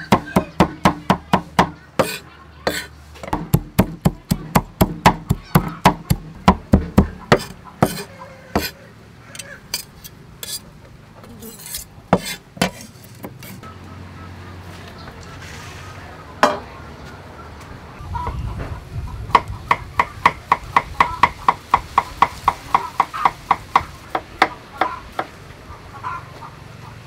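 Cleaver chopping fast on a thick wooden chopping board, mincing shallot and lemongrass: even knocks about four a second. The knocks thin out about nine seconds in and stop for several seconds, leaving a steady low hum, then fast chopping starts again.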